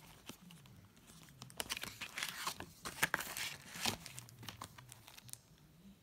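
Plastic DVD case and its paper booklet being handled: crinkling and rustling with a run of small plastic clicks and taps, busiest in the middle seconds and dying away near the end.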